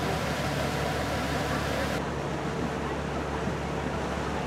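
Small passenger ferry under way: its engine running with a steady low hum under a constant rush of wash and wind across the open deck. The hiss thins a little about halfway through.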